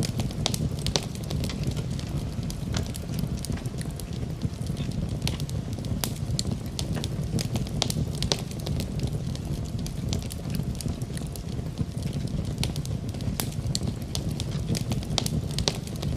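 Cooking fire with a steady low rumble and frequent sharp, irregular crackles and pops.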